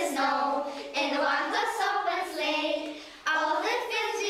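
A child singing in a high young voice, a few short phrases with brief breaks between them.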